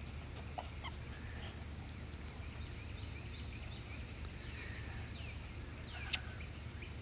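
Quiet outdoor ambience: a steady low hum with faint, short bird chirps now and then, and a single sharp click about six seconds in.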